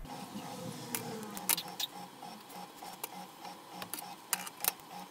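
Hands pressing double-sided tape down onto a paper napkin: soft paper rustling with several sharp clicks and taps, over a faint even pulse of about three beats a second.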